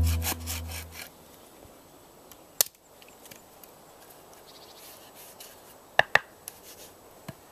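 The intro music fades out in the first second. Then come a few sharp wooden knocks: a wooden mallet striking an axe set into a log to split it, once about two and a half seconds in and twice in quick succession near six seconds.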